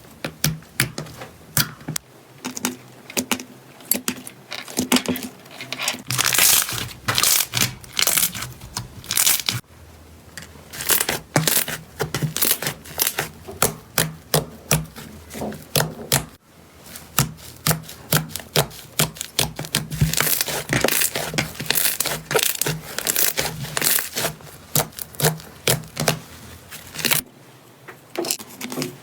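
Slime being squeezed and pulled by hand, giving a quick run of crackling pops and clicks, several a second, with a couple of brief pauses.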